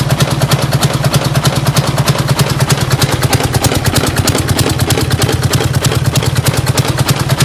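Detroit Diesel DD15 inline-six diesel running with a loud, rapid, even knocking. The sign of something broken in the top of the engine, later traced to loose rocker arm bolts that keep the valves from opening properly.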